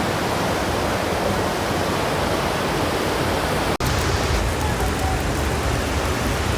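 Steady loud rush of flowing water, like a river or waterfall. It breaks off for an instant about halfway through and resumes with a heavier low rumble.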